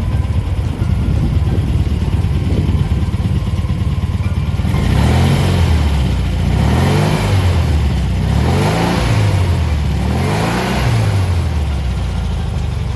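VW-type air-cooled flat-four engine (SSP 1641 SP2) in a Rewaco trike idling, then revved in several quick blips from about the middle on, each rising and falling in pitch, before it drops back to idle near the end.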